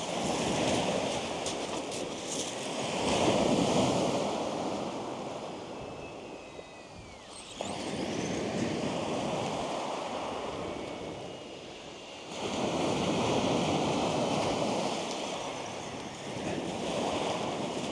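Sea waves breaking and washing over a shingle beach, the rush of water and pebbles swelling and ebbing with each wave every few seconds.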